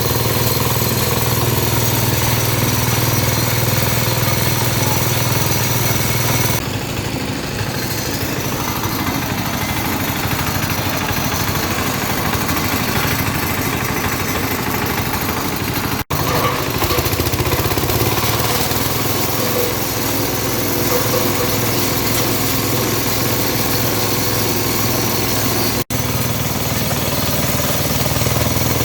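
Engine-driven compost and manure grinding machine running steadily, with a low hum under a dense noisy rattle. The sound shifts a little about a quarter of the way in and cuts out for an instant twice.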